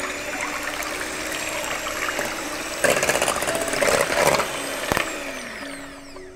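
Electric hand mixer running steadily, its beaters whisking eggs, milk and oil in a glass bowl. It gets louder for a second or so about three seconds in, then the motor winds down near the end.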